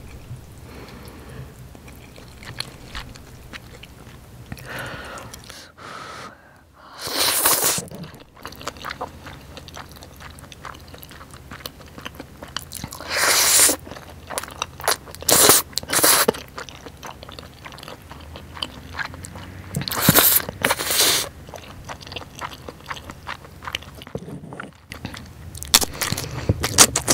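A person eating jjajang buldak rabokki, black-bean-sauced chewy noodles and rice cakes: several loud slurps of noodles, with steady chewing and wet mouth clicks in between.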